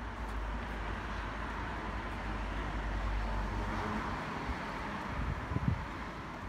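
Road traffic on a town street: a vehicle passing that swells and fades, with a low wind rumble on the microphone and a brief low thump near the end.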